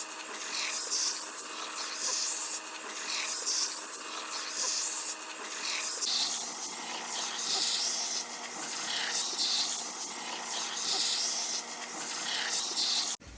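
Hair dryer running with a steady motor hum under its blowing hiss, the hiss swelling and fading about once a second. The hum drops to a lower pitch about six seconds in, and the sound cuts off just before the end.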